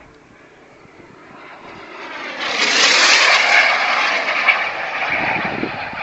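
Fast radio-controlled model jet flying past: its jet rush swells from about two seconds in, is loudest around the middle, then eases off as it moves away.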